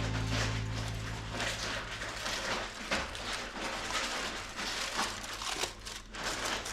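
Irregular rustling and crinkling handling noise, a rapid run of uneven scrapes and crackles; a low music note fades out in the first second or two.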